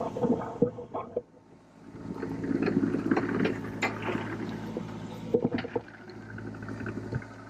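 Diesel engine of a John Deere 35G mini excavator running steadily, with a few short knocks and rattles over it. It dips briefly about a second in.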